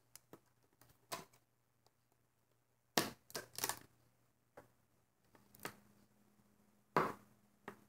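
Rubber loom bands clicking and snapping against a small plastic loom as they are looped over its pegs by hand: about ten scattered sharp snaps, the loudest about three and seven seconds in.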